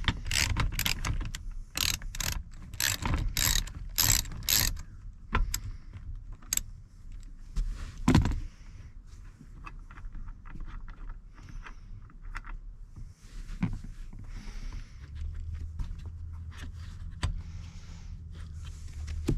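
A 3/8-inch ratchet clicking rapidly as a T50 Torx bolt on a seat belt retractor is backed out, stopping about five seconds in. After that come scattered clicks and knocks of the parts being handled, with one louder thud around eight seconds in.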